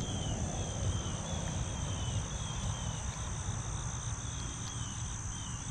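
Insects calling: a steady high buzz with a short falling chirp repeated about two or three times a second, over a low rumble.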